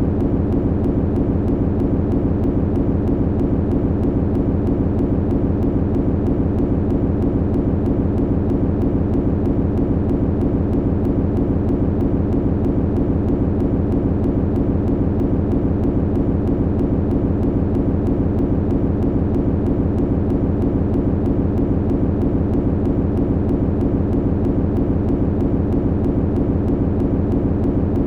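Machinery humming steadily, low-pitched, with a fast, even throb.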